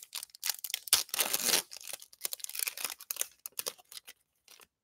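Wrapper of a trading-card pack crinkling and tearing as it is opened by hand, in irregular crackles that are densest in the first second and a half and thin out toward the end.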